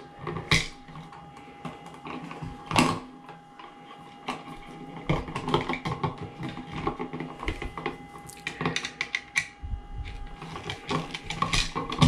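Small clicks, taps and scrapes of a USB duplex outlet being handled while hot wires are fed into its back-wire holes and its terminal screw is worked with a screwdriver. Two louder knocks come about half a second and nearly three seconds in, and the clicking gets busier in the second half.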